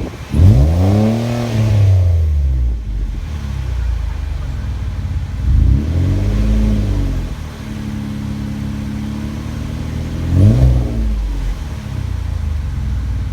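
A 2013 Ford Taurus SEL's engine is revved through a custom exhaust of 2½-inch pipe, an SLP bullet resonator and Magnaflow mufflers. There is a sharp rev about half a second in, a slower rise and fall a few seconds later, and a quick blip near the end, with the engine idling steadily in between.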